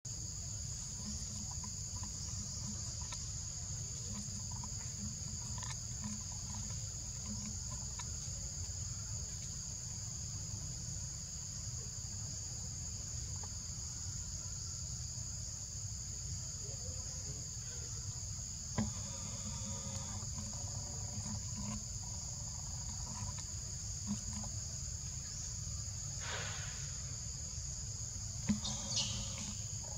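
Steady high-pitched drone of an insect chorus, with a low rumble underneath. A few short calls from another animal break through in the last ten seconds, the last one falling in pitch near the end.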